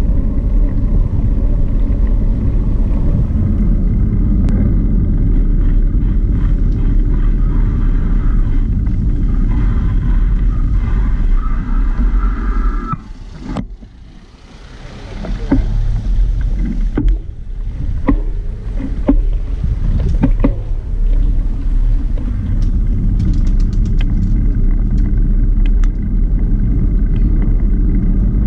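Wind buffeting the microphone of a camera on a moving bicycle, a steady low rumble mixed with tyre noise on the paved path. It eases off for a couple of seconds about halfway through, and a few light clicks and ticks follow.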